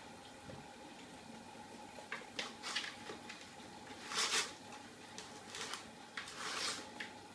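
Kitten pawing at and scrabbling against a plastic laundry basket, a series of short scratching and scraping bursts, the longest about four seconds in and another just after six seconds. A faint steady hum runs underneath.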